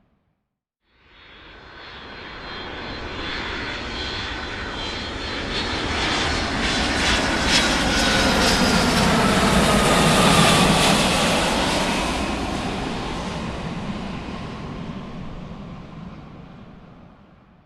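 Large aircraft flying overhead: engine noise that swells to a peak about ten seconds in and then fades away, with a high whine and a tone that drops in pitch as it passes.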